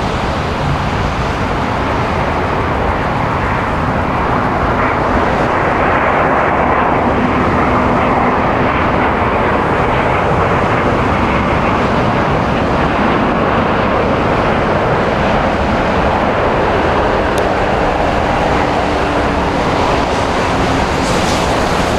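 Airbus A350-900's Rolls-Royce Trent XWB jet engines landing, a steady loud jet noise that swells a little about six seconds in.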